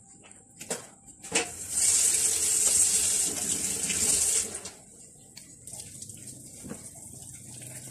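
Water running for about three seconds, starting after two short clicks and stopping about four and a half seconds in. A faint steady bubbling follows from the pan of broth on the boil.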